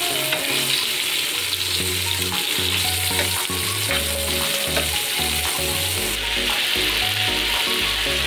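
Fish pieces sizzling in hot oil in a frying pan, with a metal spatula scraping and tapping as they are turned. Background music with a repeating bass line plays under the frying.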